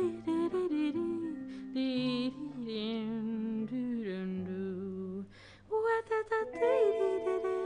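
A woman humming a wordless melody with vibrato over held instrumental notes, with a short break a little past five seconds in.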